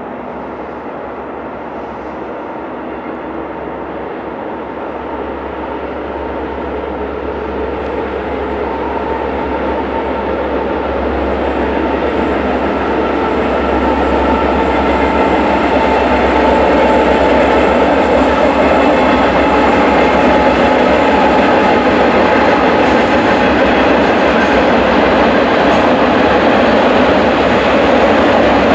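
Union Pacific freight train passing: the diesel locomotives' engine drone grows steadily louder over about the first half as they approach and go by. It is followed by the steady rumble of container flatcars rolling past on the rails.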